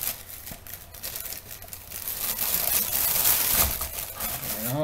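Clear plastic packaging crinkling and rustling as it is handled, growing louder about halfway through.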